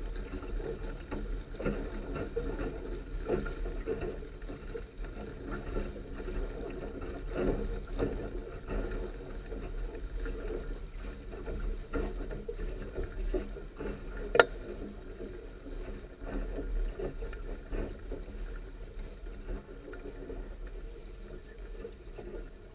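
Water rushing and slapping along the hull of a Sunfish sailing dinghy under way, uneven with frequent small splashes. One sharp click sounds about two-thirds of the way through.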